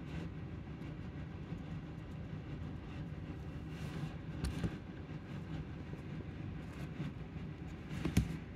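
Steady low rumble with a faint hum, and two short sharp clicks about four and a half and about eight seconds in.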